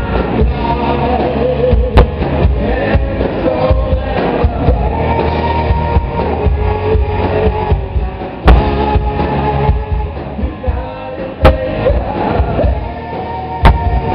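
Live rock band playing loud: electric guitars, bass guitar and drum kit. Four sharp cracks stand out above the music.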